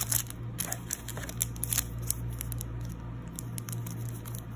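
Foil booster-pack wrappers crinkling as they are handled and turned over, a scattered run of short crackles, over a steady low hum.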